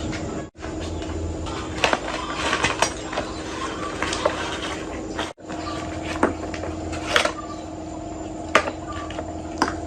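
Scattered sharp clinks and taps of metal parts and tools being handled during a repair, over a steady low hum. The sound drops out briefly twice.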